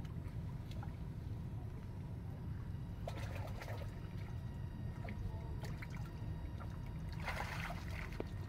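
Water splashing and sloshing as macaques move through shallow muddy water, in two short bursts, about three seconds in and again near the end, over a steady low rumble.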